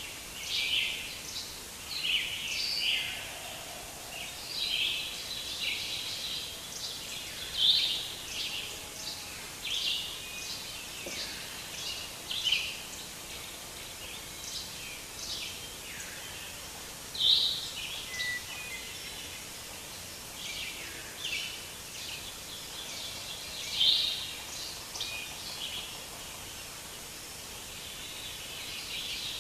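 Birds chirping and calling over a steady hiss, many short calls, a few of them louder, like a forest birdsong ambience.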